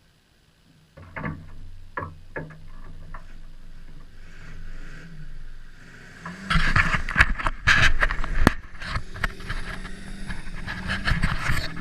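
A car running, with a steady low engine hum and scattered knocks and clicks. About six and a half seconds in it turns much louder, with dense rattling and banging.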